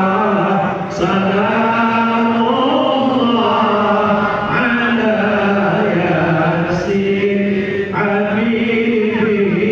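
Men chanting a sholawat, a devotional Arabic hymn in praise of the Prophet Muhammad, in long drawn-out notes that rise and fall slowly.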